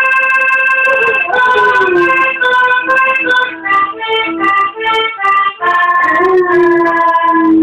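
A free-reed instrument playing a tune note by note, with a Weimaraner howling along in long sliding tones, once about a second in and again near the end.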